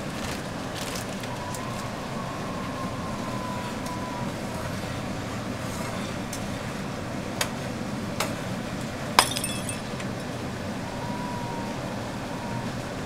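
A few light clinks of metal against a stainless steel cooking pot, three of them between about seven and nine seconds in, the last the loudest with a short ring. Under them runs a steady low rushing noise, and a faint high tone twice wavers up and back down.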